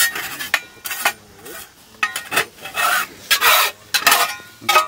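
Metal spatula scraping the bottom of a frying pan in a run of short, uneven strokes, sometimes several a second, scraping out the leftover bits of fried egg and bacon.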